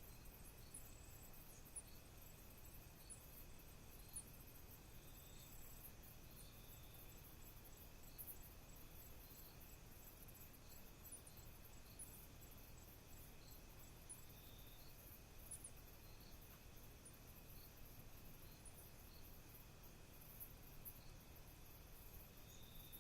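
Faint night chorus of crickets and other insects: a steady high trill, a faster ticking trill above it, and short chirps every second or two.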